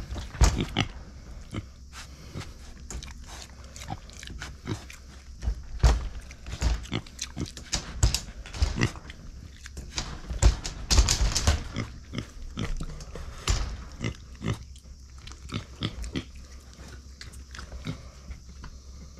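Micro pig grunting and snuffling as it moves about its wire pen, with irregular sharp clicks and knocks, the loudest clustered about two thirds of the way in.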